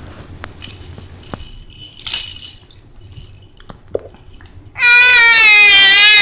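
A baby's rattle toy shaken in a couple of quick bursts, then a loud, long squeal from the baby near the end, held at one pitch with a slight wobble.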